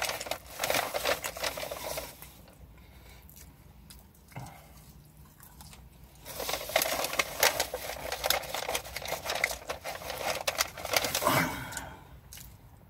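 Crinkling and rustling of fast-food paper wrapping as food is handled, in two stretches of crackling, at the start and again from about six seconds in, with quieter moments between.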